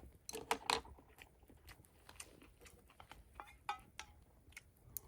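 Eating sounds: chewing close to the microphone, with a cluster of sharp crunching clicks near the start and a few single clicks later.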